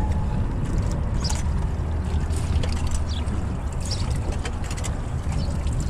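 Water sloshing around a small boat and dip nets working in the water, over a steady low rumble, with scattered light clicks and knocks.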